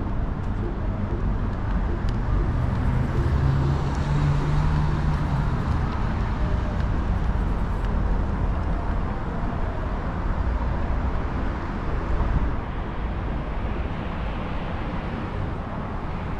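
City street traffic: a steady wash of passing cars, with one vehicle's low engine drone swelling and fading a few seconds in.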